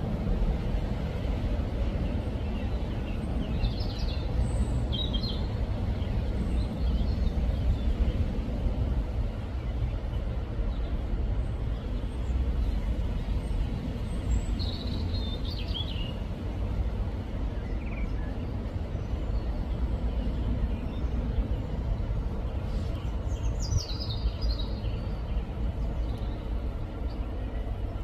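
Low, steady rumble of a Class 66 diesel freight locomotive's two-stroke V12 engine as it approaches slowly hauling loaded hopper wagons. Birds chirp briefly a few times over it.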